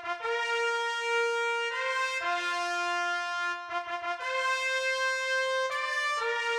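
Slow brass music, like a short trumpet fanfare: long held notes, two or three sounding together, moving to a new chord every second or two.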